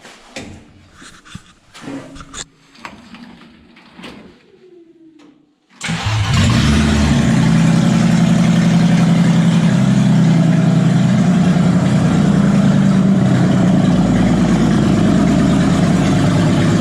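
A few light clicks and knocks, then about six seconds in the articulated off-road machine's engine starts and runs steadily and loudly.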